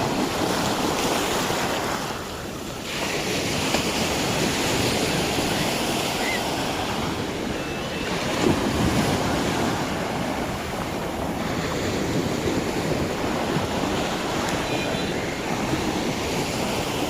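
Ocean surf breaking on a beach: a continuous roaring wash of waves with wind buffeting the microphone. It eases briefly about two seconds in and surges louder about eight seconds in.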